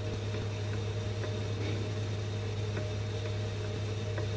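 Steady low hum with an even hiss, unchanging throughout, and a few faint ticks.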